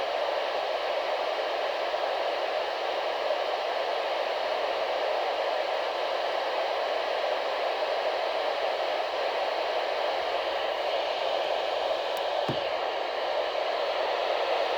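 Steady radio static hiss from a weather radio receiver, with no voice on the channel between broadcast messages.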